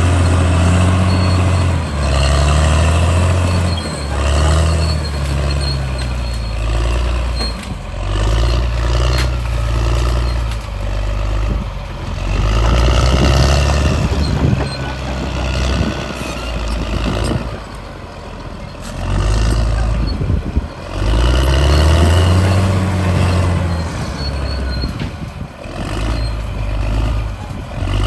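Caterpillar D6R bulldozer's diesel engine working under load, its pitch and level rising and falling every few seconds as it pushes, with a few sharp metallic knocks.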